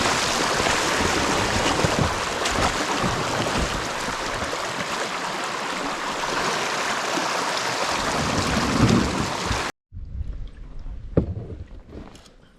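Steady rushing of moving creek water close to the microphone, cutting off suddenly about ten seconds in; after it, quieter scattered water sounds and a single sharp knock.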